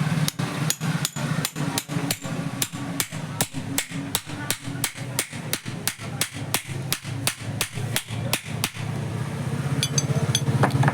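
A hammer tapping a fan motor's shaft to drive it into the centre of the rotor: quick, even blows at about three a second for some eight seconds, then it stops.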